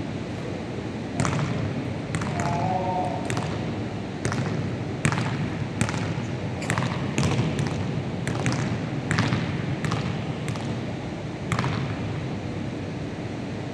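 A basketball bouncing on a wooden gym floor, with irregular dribbles and thuds that echo in a large hall. A brief squeak comes about two and a half seconds in.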